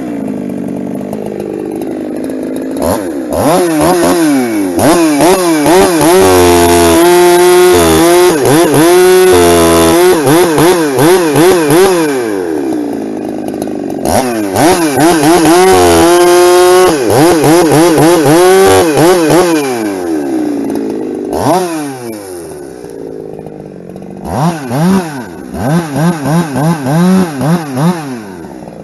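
Ported Husqvarna 372 two-stroke chainsaw bucking firewood: held at high revs through the cuts with the pitch wavering under load, dropping back between them. It ends with a run of quick throttle blips.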